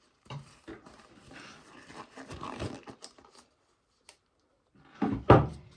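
Rustling and handling noises, like disposable gloves being pulled onto the hands, then a brief loud bump and rustle near the end.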